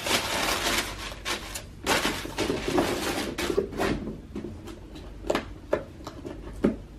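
Hands handling sneaker packaging: paper and a shoe box rustling and crinkling for the first few seconds, then a few light knocks and taps as the shoe is handled.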